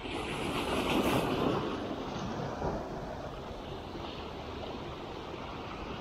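Small sea waves breaking and washing among shoreline boulders, one surge swelling up about a second in, then a steady wash.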